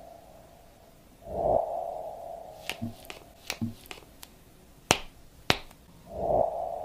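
Sharp clicks and taps from handling a folded Honor V Purse foldable phone, with the two loudest clicks about half a second apart past the middle. A soft thump with a lingering hum comes about a second and a half in, and again near the end.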